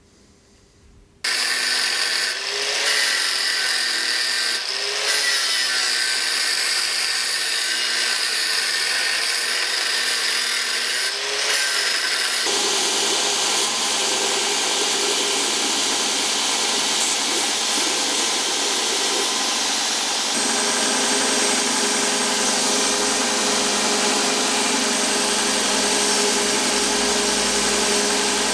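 Belt grinder running with a metal sword pommel pressed against the abrasive belt at the contact wheel, grinding it to shape. The sound starts suddenly about a second in and goes on steadily, its pitch wavering a few times in the first half.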